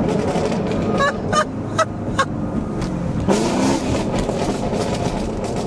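Chevrolet Camaro 1LE's 6.2-litre V8 breathing through aftermarket long-tube headers, heard from inside the cabin. Four sharp exhaust pops come about a second in, roughly 0.4 s apart, then the engine revs up briefly about three seconds in.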